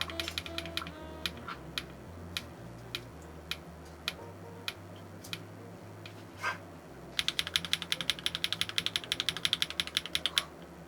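Keystrokes on a mechanical keyboard with HMX linear switches: slow single presses at first, then a fast run of typing from about seven seconds in until near the end. Soft background music runs underneath.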